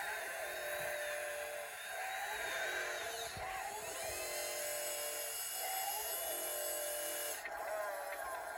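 Small electric motors of radio-controlled construction models whining as they work, the pitch stepping and sliding every second or two as the machines start, stop and change speed.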